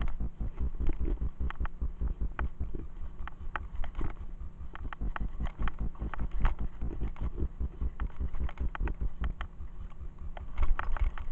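Mountain bike rattling and clattering over a rough dirt singletrack: a dense run of irregular knocks and clicks from the bike and camera mount jolting on the bumps, over a steady low rumble.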